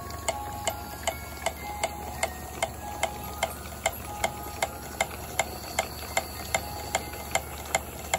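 Coles' Power Models Worthington-type model steam pump running, its strokes making an even series of sharp clicks, about two and a half a second, as it feeds water to the boiler.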